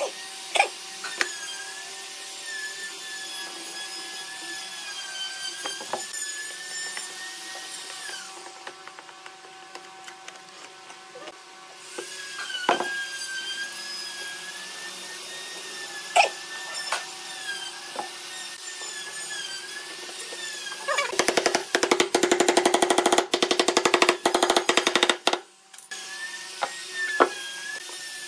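Workbench handling sounds: several sharp knocks of wooden pieces being tapped and set down. About three quarters of the way through comes a loud, rapid rattling clatter lasting about four seconds.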